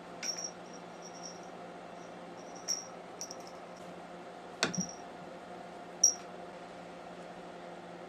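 Cats playing under a wooden chair with a string toy: scattered light clicks and taps, a louder thump a little past halfway, and a sharp click about six seconds in, over a faint steady hum.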